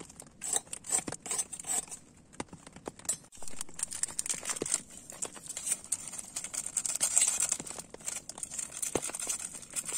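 Plastic instant-noodle seasoning sachets crinkling and tearing as they are torn open and squeezed out over a pot of noodles, with irregular small clicks.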